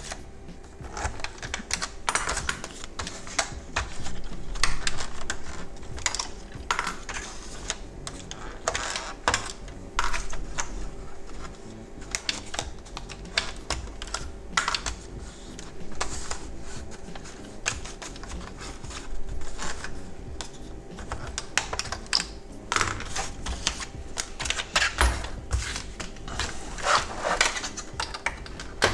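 Irregular small clicks, taps and scrapes of hand tools on hard plastic as a GM truck instrument cluster is dismantled by hand, its gauge needles being pried off.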